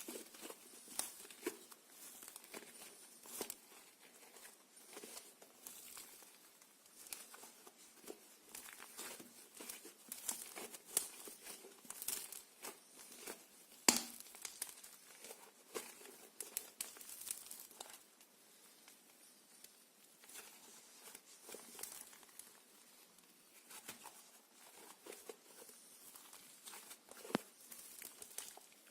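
Slime being squished and stretched by hand, giving a run of small, irregular sticky clicks and crackles, with one sharper pop about halfway through.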